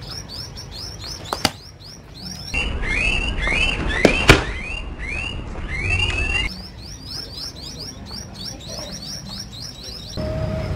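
Homemade pop-pop cracker of match heads and gravel wrapped in tissue paper, thrown against a concrete wall and going off: a sharp crack about a second and a half in, then a louder bang about four seconds in. Rapid, evenly repeated chirping runs underneath throughout.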